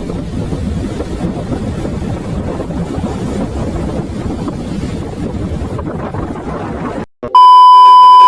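Steady, dense rumbling noise, like wind on the microphone, cut off suddenly about seven seconds in; after a brief silence a very loud, high, steady beep sounds for about a second and stops abruptly.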